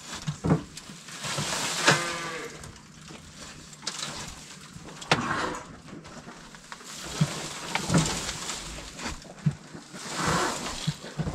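Dairy cows mooing several times, with scattered sharp knocks and clanks between the calls.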